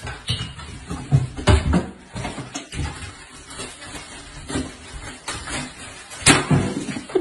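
A door letterbox rattling and clacking, with several knocks against the wooden door, as a cat jumps up and hangs from the flap. The loudest knock comes about a second before the end.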